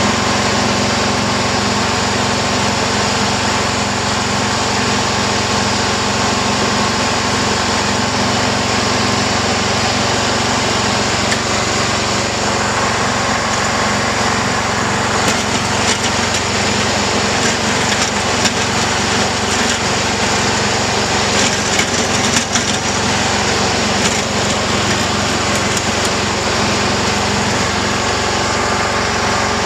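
John Deere GT262 garden tractor engine running steadily under load while its front blade pushes snow. A scatter of crunching, scraping clicks from the blade and tires in the snow comes through in the middle.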